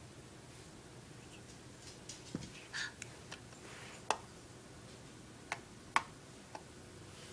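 Light, irregular clicks and taps, about eight over a few seconds, from small plastic makeup items being handled.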